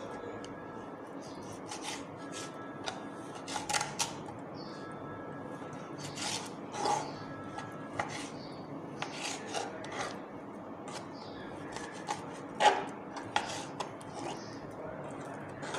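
Kitchen knife cutting raw chicken breast on a plastic cutting board: irregular taps and short scrapes of the blade against the board, with one sharper knock about three-quarters of the way through.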